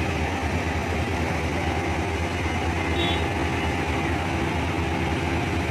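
Steady low rumble of idling vehicle engines amid street traffic, with a brief high tone about three seconds in.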